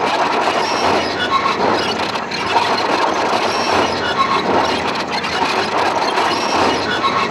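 Electroacoustic noise soundscape from the dance piece's sound design, played over the theatre's speakers: a loud, dense, steady noise with short high squeaky tones scattered through it and little bass.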